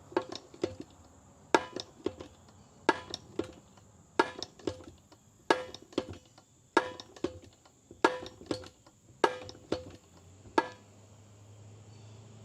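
Hand pump dispensing synthetic gear oil, worked in even strokes about one and a quarter seconds apart; each stroke is a sharp clack with a short metallic ring. The strokes stop a couple of seconds before the end.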